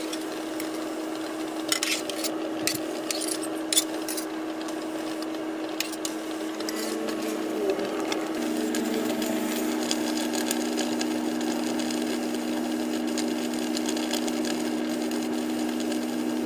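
A large octopus boiling in a wide metal pan: the water bubbling at a rolling boil, with a few sharp clicks of a utensil against the pan in the first few seconds and a steady low hum underneath.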